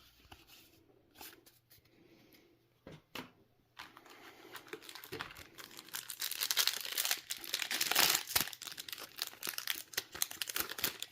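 Foil trading-card booster pack wrapper being torn open and crinkled. A few quiet clicks come first, then the crinkling starts about four seconds in and carries on busily.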